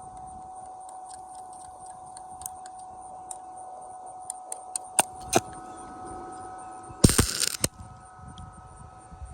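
Light metal clinks and two sharp knocks over a steady high whine, then a short, loud burst of noise about seven seconds in, during metal fitting for welding.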